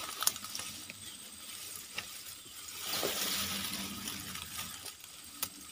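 Ferns and leafy undergrowth rustling as someone pushes through on foot, with a few light snaps and clicks and a louder rustle about three seconds in.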